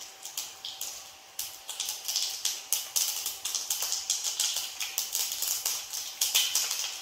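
Mustard seeds popping and crackling in hot coconut oil in a kadai: quick, irregular sharp pops, sparse at first and coming thick and fast after about a second and a half. The spluttering shows the oil is hot enough for the tempering.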